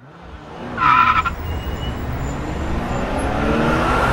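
Road traffic with a steady low rumble, a brief high squeal about a second in, then a car engine revving up, rising in pitch.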